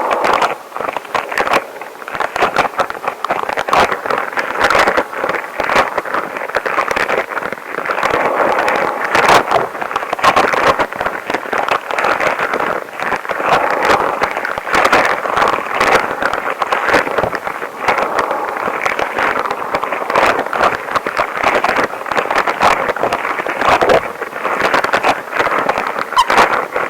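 Extra-long rubber gloves rubbing and crackling close to the microphone, a dense run of friction squeaks and clicks.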